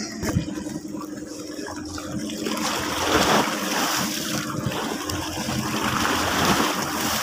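Sea water rushing and splashing, swelling louder about two seconds in, with a faint steady low hum underneath.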